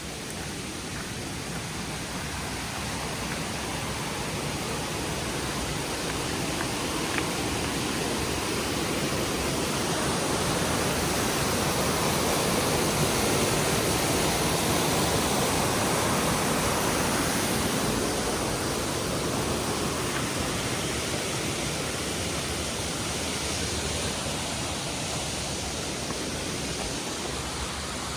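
Rushing water of a trailside stream or cascade: a steady rush that grows louder toward the middle and then eases off again.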